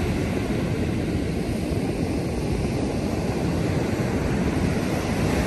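Wind buffeting the microphone over breaking ocean surf: a steady, heavy rush, strongest in the low end.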